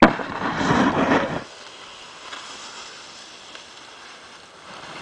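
A snowboard's edge scraping across hard-packed snow in a turn for about a second and a half, then stopping abruptly and leaving a faint hiss.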